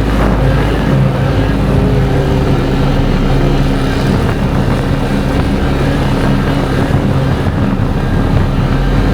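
UAZ off-road vehicle engines running steadily.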